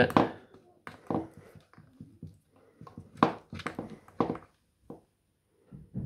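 Small side cutters snipping and stripping the wire leads of a submersible pump motor: irregular short, sharp clicks and light knocks as the tool and wires are worked.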